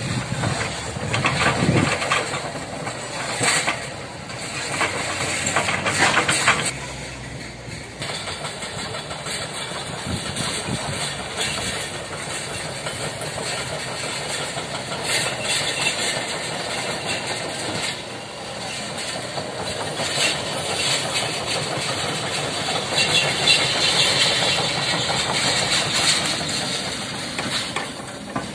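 Hitachi hydraulic excavator's diesel engine running steadily while its log grapple lifts and swings logs onto a stack, with scattered knocks and clatter of logs striking the pile.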